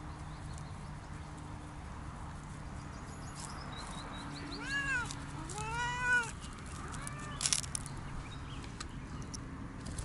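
Siamese cat meowing three times about a second apart, the middle meow the longest and loudest, followed by a short rustle.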